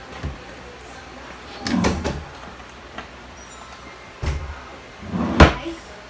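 Cabinet drawer being handled and pushed shut: a short rumble about two seconds in, a thump a little past four seconds, and a sharp knock near the end, the loudest.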